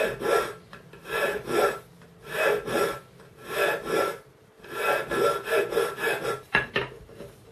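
Flat hand file scraping back and forth across a cast aluminium crossbow riser clamped in a vise, taking down the seat for the limbs. Repeated strokes, about one a second, coming quicker near the end.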